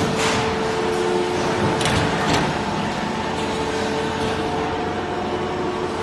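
Running machinery on an egg-box packaging production line: a steady mechanical din with a constant hum, broken by a few brief louder noises just after the start and about two seconds in.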